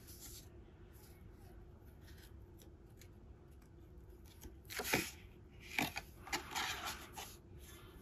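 Stiff paper postcards and a folded card being handled with knit gloves: small ticks and rustles, then louder paper rustling and sliding about five seconds in and again around six to seven seconds as the cards are opened and pulled apart.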